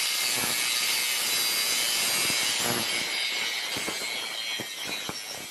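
A 4.5-inch angle grinder with a thin cutoff wheel cutting through the edge of steel bed-frame angle iron: a steady, high-pitched grinding that grows quieter after about three seconds.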